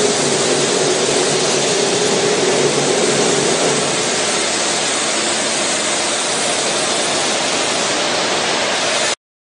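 Haineng stone bridge saw's blade cutting through a stone slab with water spraying: a loud, steady grinding hiss. A steady hum under it fades about four seconds in, and the sound cuts off abruptly near the end.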